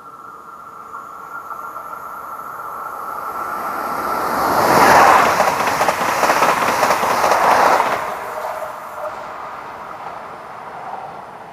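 Alstom Coradia multiple-unit passenger train passing through the station without stopping. The wheel and rail noise builds as it approaches, is loudest for about three seconds in the middle as the cars run by, then fades away.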